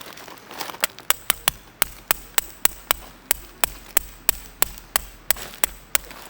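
A tool striking something hard over and over: sharp, evenly spaced blows, about three a second, some twenty in all.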